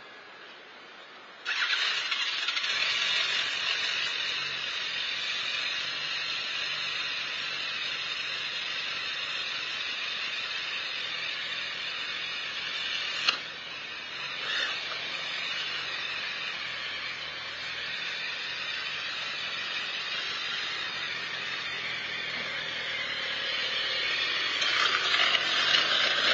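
A motorcycle engine bursts into life about a second and a half in and runs steadily, with one sharp click about halfway through. Near the end it gets louder and its pitch shifts up and down as it is revved.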